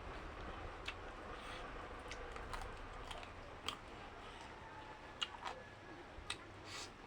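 Someone eating close to the microphone: scattered short wet clicks and smacks of chewing, at uneven intervals, over a faint low hum.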